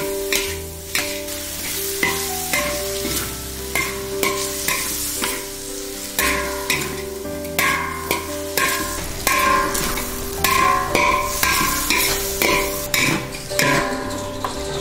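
A metal spatula scraping and clanking against a large stainless-steel wok as chopped pork with shallots, garlic and ginger is stir-fried in a steady sizzle. The strokes are irregular, about one or two a second.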